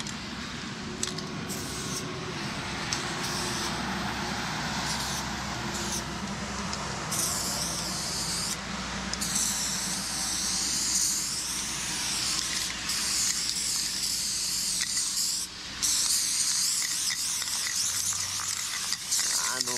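Aerosol spray paint can hissing as it sprays paint onto a wall, in long strokes with brief breaks between them. The hiss is faint for the first several seconds and much stronger from about a third of the way in.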